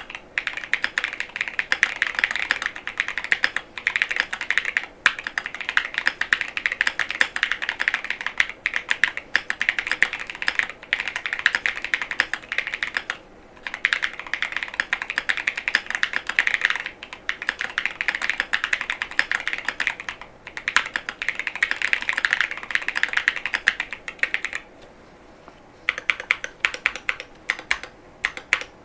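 Fast typing on a Monsgeek M5 mechanical keyboard with Gateron Baby Kangaroo tactile switches and PBT SDA keycaps: a dense, continuous run of keystroke clacks, broken by a brief pause about halfway and a slightly longer one near the end.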